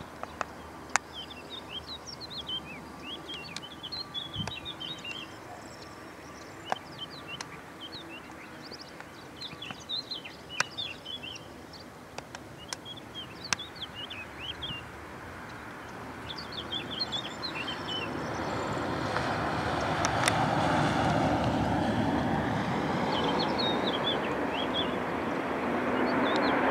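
Small birds chirping, with a few sharp clicks, over a faint background. From about 18 seconds in, the engine and propeller noise of an ATR 72 twin turboprop swells into a loud, steady rush as it rolls out along the runway after touchdown.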